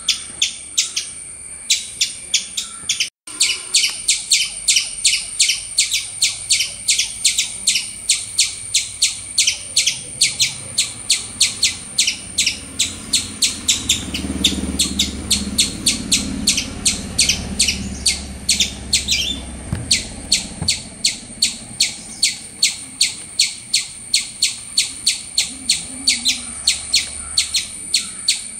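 Eastern gray squirrel call: a long, even run of short, high chirps, about three to four a second, with one brief break shortly after the start.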